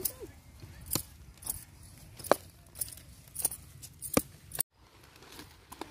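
Small hand hoe (khurpi) striking and scraping dry soil while digging planting holes: a series of sharp strikes, roughly one every half second to second.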